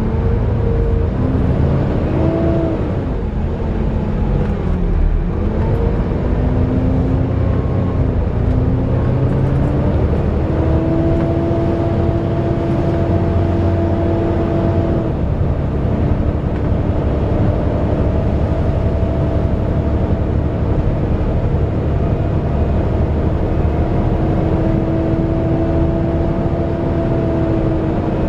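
Volvo B7TL bus running, with its engine and loud cooling fan whirring like a hoover. The pitch rises and falls a few times over the first nine seconds, then holds steady from about ten seconds in.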